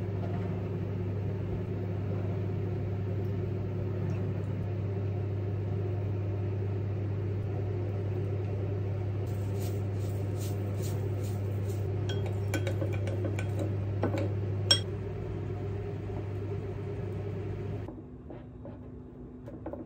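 Microwave oven running with a steady hum. Light clicks and crackles come from the dish in the middle part, with a sharp click a little after the middle. The hum drops and the oven stops shortly before the end.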